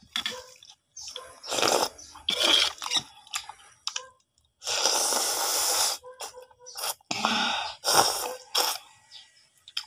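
Person slurping noodles from a hot noodle soup: a string of short slurps, with one long, loud slurp lasting over a second about five seconds in.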